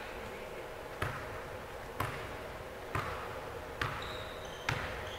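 A basketball being dribbled on a hard court: five bounces, about one a second.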